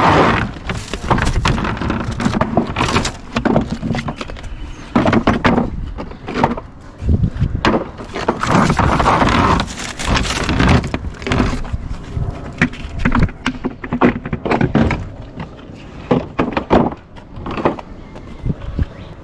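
Tools and equipment being handled and set down: irregular thuds, knocks and clatter, many in quick succession.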